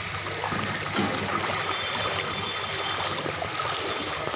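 Floodwater flowing across a waterlogged street: a steady noise of running water.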